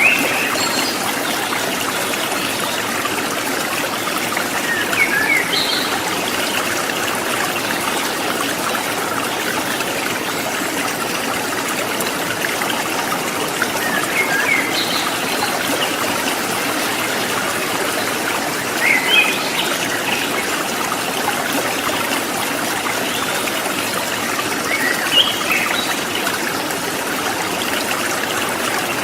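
Water of a rocky river running steadily over stones, with a few brief bird chirps every several seconds.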